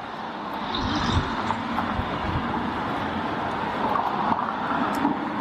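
City street traffic: cars driving past on the road, a steady noise of engines and tyres.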